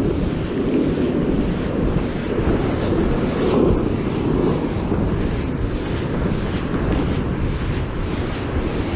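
Wind buffeting the microphone with a steady, low rumble, over the wash of ocean surf.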